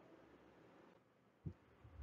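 Near silence: faint room tone, with one short, faint tick about one and a half seconds in.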